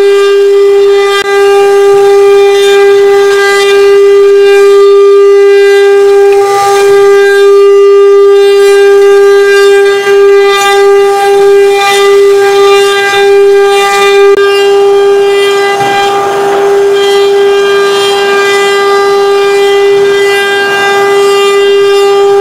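CNC router spindle whining at a steady high pitch while its bit carves a square wooden blank on a rotary axis, with bursts of cutting noise as the bit bites into the wood. The whine wavers briefly about halfway through.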